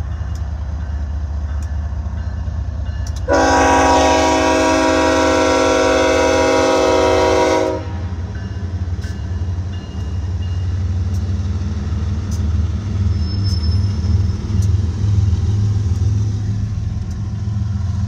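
BNSF diesel freight locomotive passing with its engine rumbling low. A little over three seconds in, its multi-chime air horn sounds one long chord of about four seconds.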